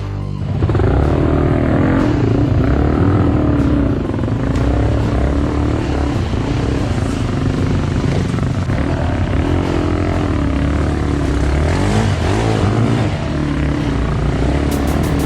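Enduro motorcycle engine revving, its pitch repeatedly rising and falling, starting about half a second in.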